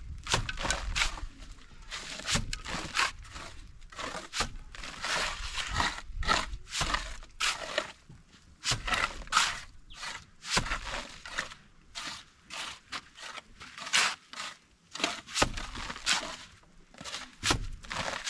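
Plastering trowel scraping against cement plaster on a wall in repeated, irregular short strokes.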